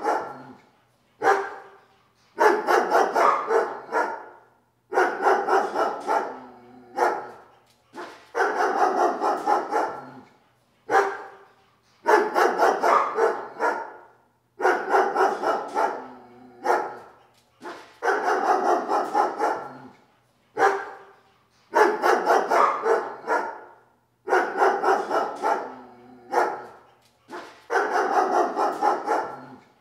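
Dog barking in regular bouts about every three seconds: a single short bark, then a quick run of barks lasting over a second that trails off.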